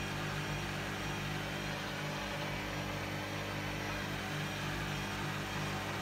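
Hoover front-loading washing machine running its final spin cycle, the drum turning the wet washing with a steady motor hum.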